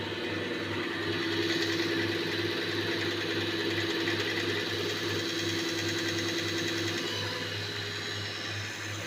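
A machine running steadily: a low hum that pulses evenly a few times a second, under a fast fine ticking.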